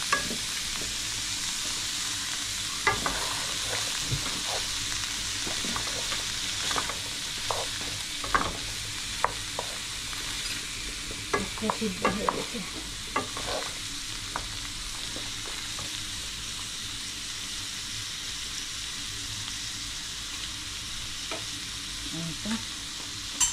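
Diced chicken, onion and bell peppers sizzling in oil in a nonstick wok, turned with a wooden spatula that scrapes and taps against the pan. The stirring strokes come thick in the first half and thin out, with a sharper knock against the pan near the end.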